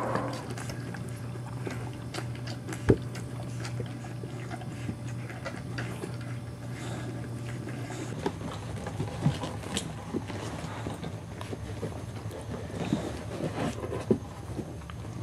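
A puppy and a small dog playing close to each other: scattered small clicks and scuffles, with one sharper click about three seconds in, over a steady low hum.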